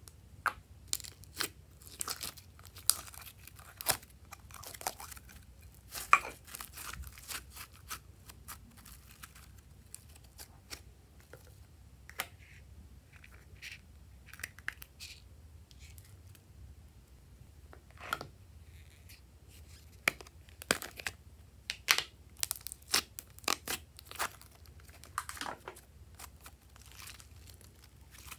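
Hands working glossy slime: pressing, poking and stretching it, with irregular sticky pops, clicks and crackles. There is a quieter stretch in the middle, then the crackles come thick again.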